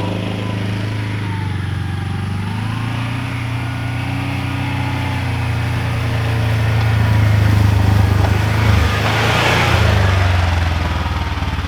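Kawasaki Mule PRO utility vehicle's engine running steadily while driving. It grows louder from about six seconds in, with a rushing noise about nine seconds in.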